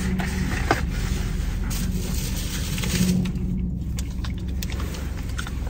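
Scraping and rustling of takeout food packaging being handled, with a sharp click just under a second in, over a steady low hum in a car cabin.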